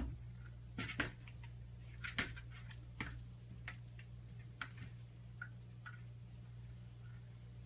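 Small bell on a cat's collar jingling faintly off and on, mixed with light taps as the cat paws at a closet door.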